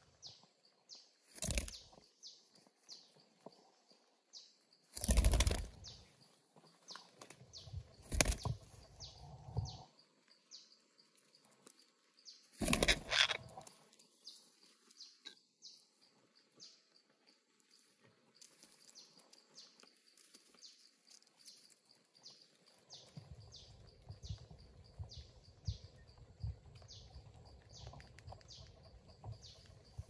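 Parakeets chirping in short, high calls repeated throughout, with four loud bursts of wing flapping in the first half. A low rumble fills the last quarter.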